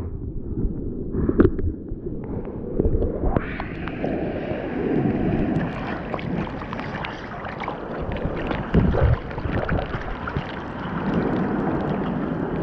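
Sea water sloshing and splashing around a bodyboard in choppy surf, picked up by a camera on the board's nose. It is muffled for the first three seconds, then opens up into fuller splashing with wind on the microphone.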